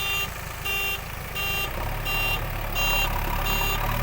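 A reversing alarm on a JCB 3DX backhoe loader beeping about once every 0.7 s, over the steady low running of its diesel engine.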